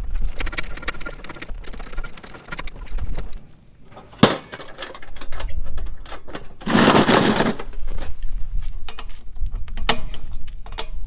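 A sharp metallic clack just after four seconds in, then a burst of an impact wrench (rattle gun) lasting just under a second on the truck's wheel nuts about seven seconds in; the nut does not crack loose and the wheel spins freely instead. Low wind rumble on the microphone runs underneath.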